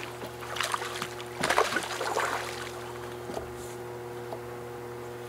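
Splashing water as a hooked lake trout thrashes at the surface beside the landing net, in a cluster of sharp splashes about a second and a half in.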